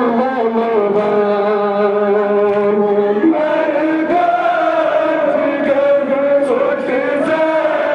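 Male voices singing a Muharram mourning chant in long held notes, amplified through horn loudspeakers; the pitch steps up about three seconds in.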